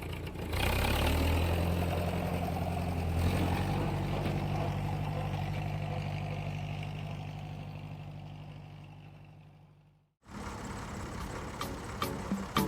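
Engine or motor running at a steady low pitch, fading away and then cut off abruptly about ten seconds in. Sharp clicks and ticks follow near the end.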